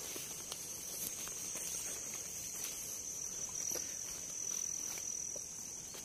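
Steady high-pitched trill of insects that does not vary in level or pitch, with a few faint rustles in dry grass.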